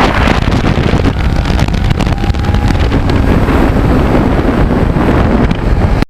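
Heavy wind buffeting on the microphone over the steady running of a Kawasaki Ninja 650R's parallel-twin engine while riding.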